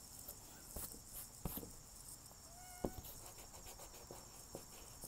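Faint rubbing and light taps of a pencil eraser on drawing paper, with one brief squeak in the middle, over a steady high hiss.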